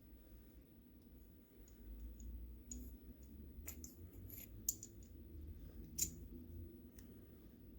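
Faint handling of a precision screwdriver set, with a few light clicks as the small magnetic bits are handled and clicked into their holder, several of them spread through the second half.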